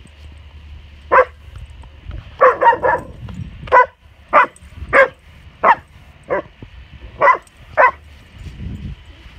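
A dog barking in alarm, about eleven sharp barks with uneven gaps, including a quick run of three about two and a half seconds in.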